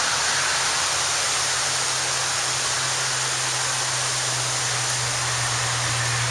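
Steady road traffic noise: an even rushing hiss with a low hum underneath.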